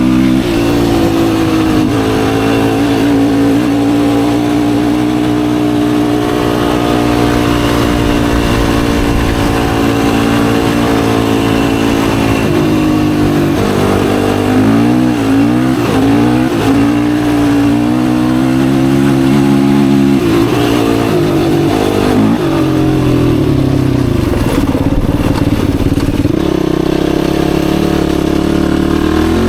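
Yamaha YFZ450R sport quad's single-cylinder four-stroke engine running under way. Its pitch holds steady for a long stretch, then rises and falls as the throttle is worked around the middle and again near the end.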